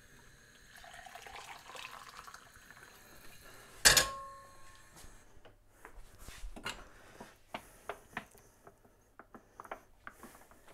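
Water poured from a kettle into a jug, its pitch rising as the jug fills. The kettle is set down with one sharp clunk about four seconds in. Then a utensil clinks quickly and unevenly against the jug as a stock cube is stirred in.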